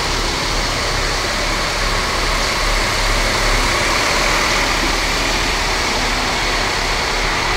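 Scania K410 coach's rear-mounted diesel engine running steadily at low revs as the bus creeps slowly past and into the bay.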